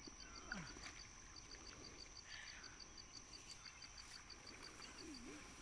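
Faint insects chirping: an even series of high pips at about eight a second over a steady high-pitched buzz, otherwise near silence.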